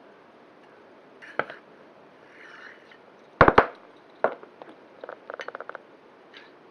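Sharp clinks and knocks of hard objects: a loud double knock about halfway through, then a quick rattling run of ticks near the end.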